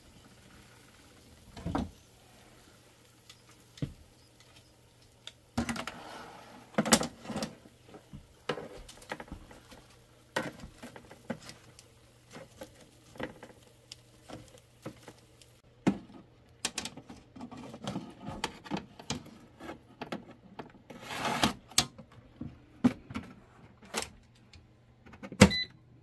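Metal tongs clicking and clattering against the wire racks of an air fryer oven, in irregular sharp knocks, over a low steady hum. Near the end comes a loud knock and a short electronic beep.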